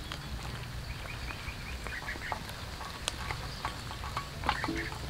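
A crowd of cats eating rice and fish from a metal tray: scattered small clicks and chewing sounds over a steady low rumble, with a few faint short high chirps.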